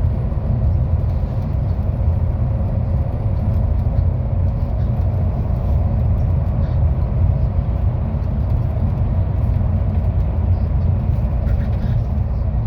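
Interior of a MAZ 216 articulated city bus under way: steady low rumble of the engine and road noise, with a faint steady hum.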